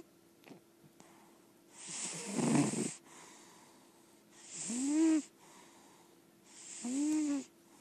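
Lilac point Siamese cat snoring in her sleep: three snores about two seconds apart. The first is a noisy rasp; the next two carry a tone that rises and falls in pitch.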